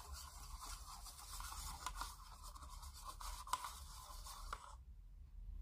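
Thinned model paint being stirred in a small plastic cup with a paintbrush, a steady scratchy scraping against the cup with small clicks, stopping sharply near the end.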